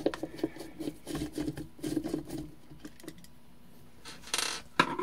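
Hand screwdriver backing a screw out of the rice cooker's fan bracket: a run of small clicks and rasping for the first couple of seconds. Then a short rustle and one sharp knock near the end.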